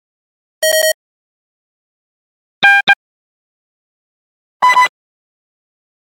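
Three short electronic beep sound effects about two seconds apart, each at a different pitch, with silence between them.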